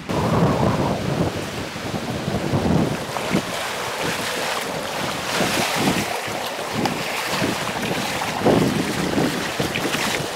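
Wind buffeting the microphone in low gusts, with waves washing against shoreline rocks coming through more clearly from about halfway in.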